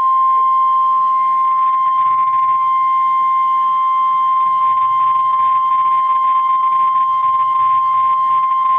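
NOAA Weather Radio warning alarm tone: a single steady high tone held for about nine seconds, then cut off, announcing a severe thunderstorm warning.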